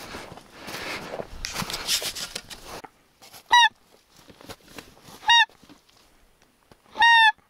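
Three single goose honks, each short and dropping slightly in pitch, evenly spaced about a second and a half apart. They follow a few seconds of rustling noise.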